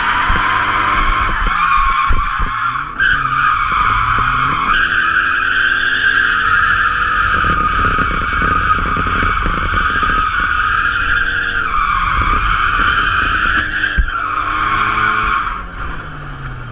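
Tyres screeching through a long drift, with the Nissan 240SX's turbocharged SR20DET four-cylinder revving up and down beneath, heard from inside the cabin. The screech shifts in pitch a few times and stops near the end.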